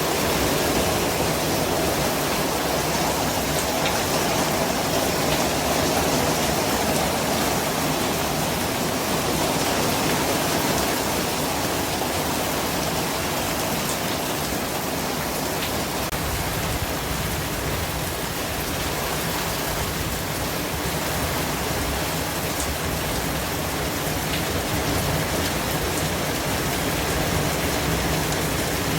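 Steady white noise: an even, unbroken hiss with slight slow swells in level.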